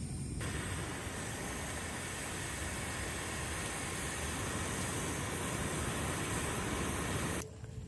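Small handheld electric blower running, forcing air onto burning lump charcoal to fan it up: a steady rushing hiss that starts just after the beginning and cuts off suddenly near the end.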